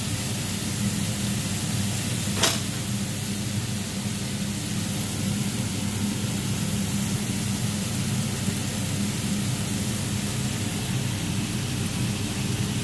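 Steady hiss and hum of cooking on the stovetop, from chicken tocino in a frying pan and a lidded soup pot, with one sharp click about two and a half seconds in.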